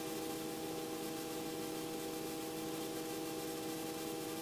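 Robinson R44 helicopter cockpit noise in forward air taxi: a steady hiss with several unchanging mid-pitched tones.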